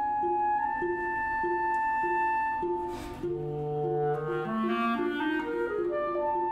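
Chamber ensemble playing contemporary classical music: a held high woodwind note over a low note repeated in an even pulse. Midway comes a short breathy rush, then a low held tone and a stepwise rising run of notes before the high note sounds again.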